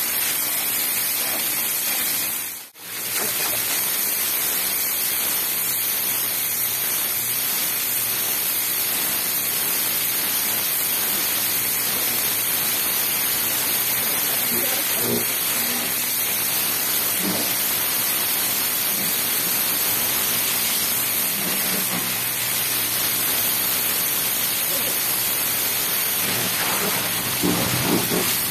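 Pressure washer's high-pressure water jet spraying, a steady loud hiss that dips out for a moment about three seconds in.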